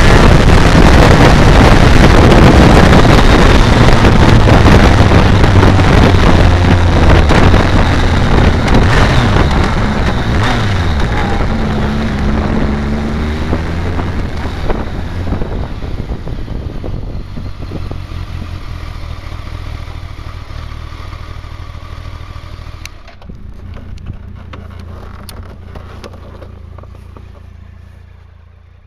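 BMW K1200R Sport's inline-four engine and wind rush at road speed, then the bike slows, the engine note falling in pitch as it changes down, and settles to a quieter steady idle as the motorcycle stops. The sound fades out at the very end.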